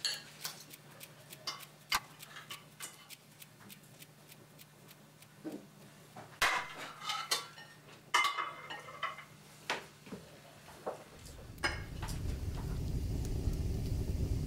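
Cutlery clinking and scraping on plates during a meal: scattered light clicks, with a few louder clinks in the middle. A steady low rumble rises near the end.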